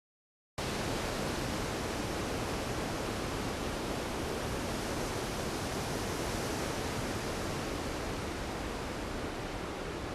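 Storm sound effect: a steady, even rush of heavy rain that starts abruptly about half a second in, after dead silence.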